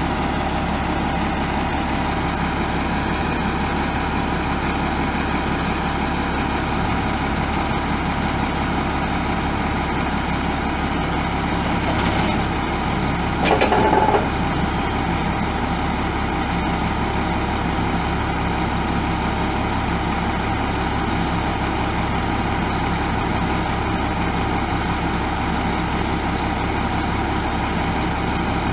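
International DT466 7.6-litre inline-six turbo diesel idling steadily, with one short, louder sound about halfway through.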